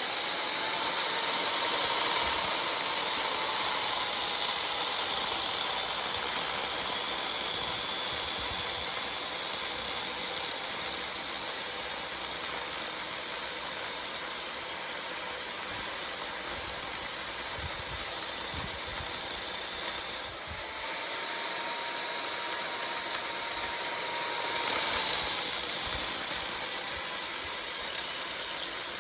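A power tool's motor running steadily with a high hiss and a whine that sags in pitch and recovers, dipping briefly about twenty seconds in.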